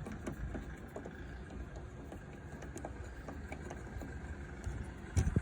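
Light, irregular clicks and taps of hand-tool work on a car door as a screw is taken out, over a low steady rumble, with a louder knock about five seconds in.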